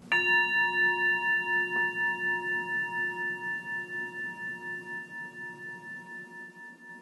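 Singing bowl struck once, closing the meditation: a clear ringing tone that fades slowly over several seconds with a gentle wavering pulse, about three beats a second.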